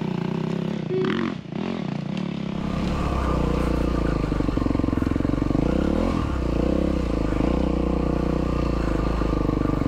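Yamaha WR450F single-cylinder four-stroke dirt bike engine running at a steady, pulsing throttle, growing louder and steadier about three seconds in. Around the middle its pitch briefly falls and climbs back as the throttle is rolled off and on again.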